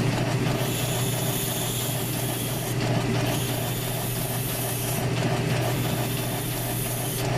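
South Bend lathe running with a steady hum and a regular pulse while a tool shapes the spinning Razor scooter wheel to round its profile. A hissing cut comes in three passes of about two seconds each, with brief breaks between them.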